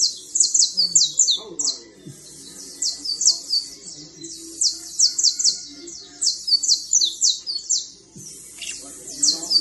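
Domestic canary singing in long trills of rapid repeated high notes, broken by short pauses about two seconds in and again near the end.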